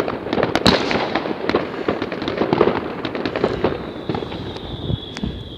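Fireworks and firecrackers going off in a dense, rapid crackle of pops and bangs that thins out toward the end, with a thin high whistle joining about three and a half seconds in.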